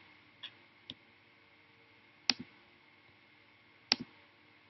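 Computer mouse clicks: two faint clicks in the first second, then two sharp, louder clicks about a second and a half apart.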